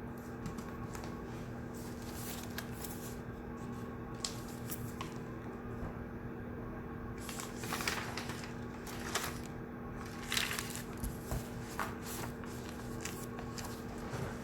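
Study room ambience: a steady low electrical or ventilation hum under scattered rustling of paper and small clicks and knocks, busiest in the second half.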